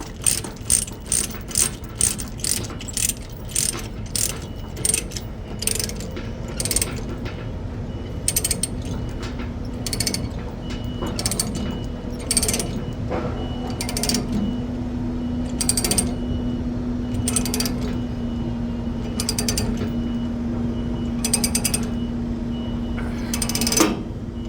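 Ratchet chain binder being cranked tight on a load-securing chain, its pawl clicking with each stroke of the handle: quickly at first, then in slower single clicks as the chain takes up tension.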